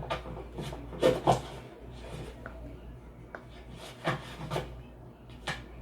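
Film Foley effects: a series of short scuffs and knocks, loudest as a quick pair about a second in, with further pairs later.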